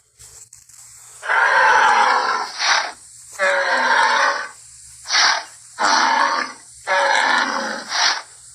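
Triceratops sound effect: a string of about six dinosaur calls, the first two long, then shorter and longer calls alternating, with short pauses between them.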